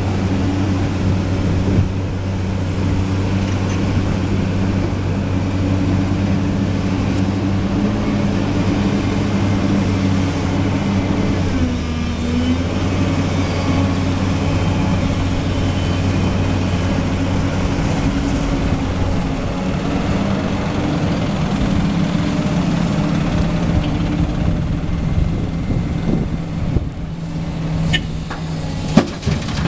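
Diesel engine of heavy earth-moving equipment running steadily, its pitch dipping briefly about twelve seconds in. A few sharp knocks come near the end.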